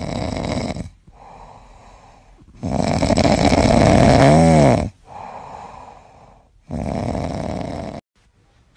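A sleeping kitten snoring: three long, loud, noisy in-breaths with quieter breaths between them, the middle one the loudest. The snoring cuts off suddenly near the end.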